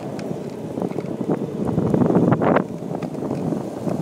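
Wind and handling noise on a camera microphone carried on the end of a moving branch: a rough rumbling rush with scattered knocks, swelling louder about two seconds in.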